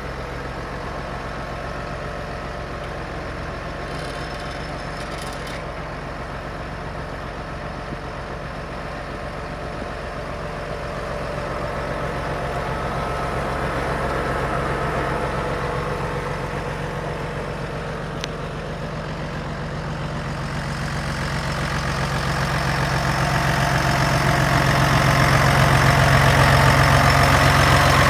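Large John Deere farm tractor's diesel engine idling steadily, growing louder over the last several seconds.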